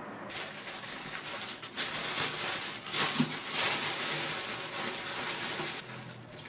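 Thin plastic bag crinkling and rustling as it is pulled over a proofing basket of dough and pressed down by hand; the rustling stops a little before six seconds in.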